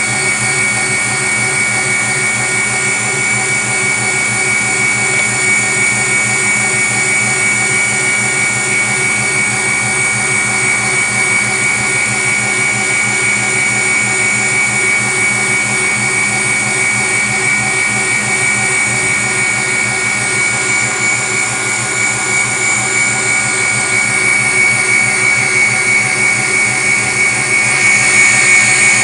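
Electric stand mixer running steadily on its highest speed, a steady high whine over the motor hum, its whisk beating eggs and sugar into a thick foam in a stainless steel bowl.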